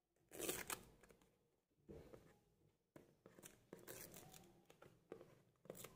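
Seal sticker being peeled and torn off a cardboard phone box: one short rip about half a second in, then fainter scratches and small clicks of fingers on the box.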